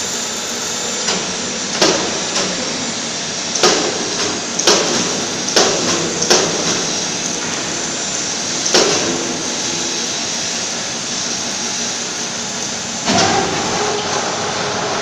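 Steady mechanical running noise from an electric welding rotator's drive, broken by a series of sharp knocks at irregular intervals through the first part and one more near the end.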